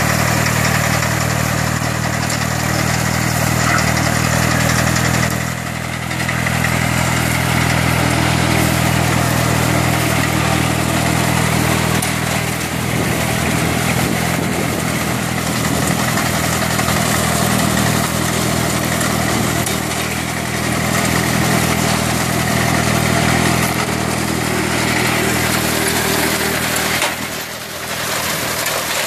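The Kubota 30 HP water-cooled diesel engine of a self-propelled reaper-binder runs steadily under harvest work. The level dips briefly twice, once a few seconds in and again near the end.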